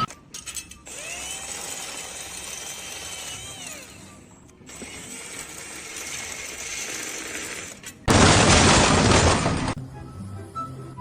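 A small motor whines, rising in pitch, holding and then winding down. About eight seconds in, a loud burst of harsh noise lasts about a second and a half, followed by background music.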